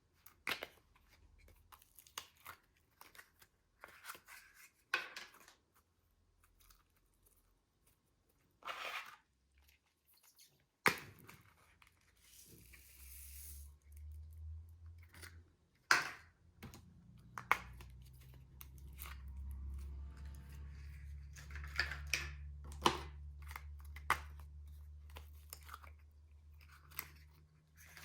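Slime being mixed and stretched by hand, giving irregular clicks and short crackles.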